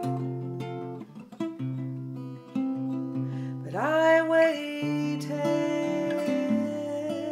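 Acoustic guitar fingerpicked in a slow pattern of single plucked notes and low bass notes. About halfway through, a woman's singing voice slides up into a long held note that wavers slightly near the end.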